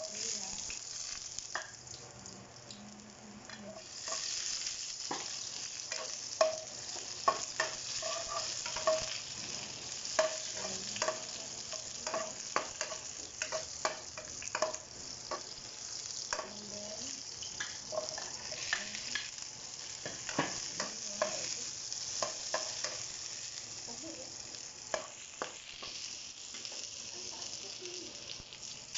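Garlic and ginger sizzling in hot oil in a nonstick wok, with a spatula stirring and clicking against the pan. The sizzle grows louder about four seconds in.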